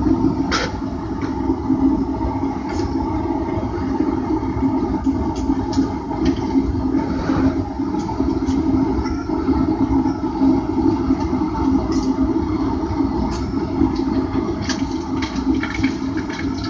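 Steady rushing roar of a forge running while a piece of hot steel is quenched in oil to preheat it, the oil bubbling around it, with scattered sharp clicks.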